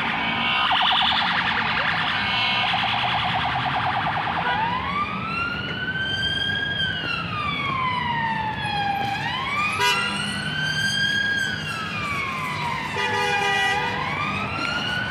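Emergency-vehicle siren, a fast yelp for the first few seconds, then a slow wail rising and falling twice, over the rumble of city traffic.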